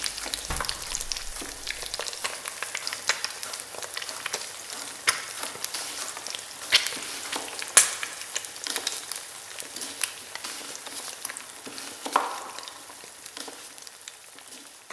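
Food sizzling in a hot pan, with many irregular spitting pops and a few louder clicks, fading out near the end.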